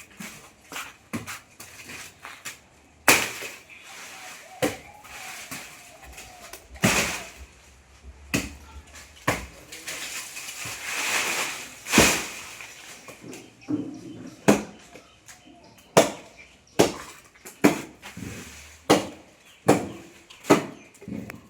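Tree being chopped by hand with a blade: repeated sharp chopping strokes into the wood, coming about once a second in the second half. A longer rustling, crashing noise runs for a couple of seconds around the middle.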